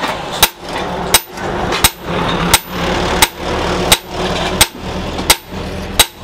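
Hand hammer blows on the red-hot leaf-spring steel tang of a cleaver against a small stake anvil: nine sharp strikes in an even rhythm, about three every two seconds. A steady hum runs between the blows.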